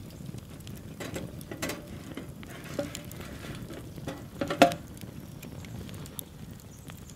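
Campfire wood fire crackling and popping, with scattered small clicks and a sharper knock about four and a half seconds in.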